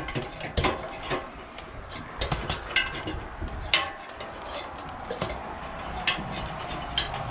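Hands and feet knocking and clicking on the rungs of an aluminium extension ladder while someone climbs it, a scatter of irregular light knocks.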